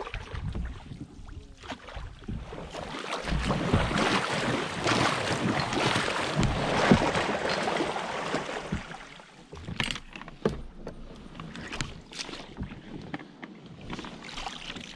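Water churning and sloshing around a loaded canoe as it is paddled and pushed through a shallow, muddy marsh creek. The churning is loudest for several seconds in the middle. Near the end come scattered sharper splashes as a paddler wades beside the boat.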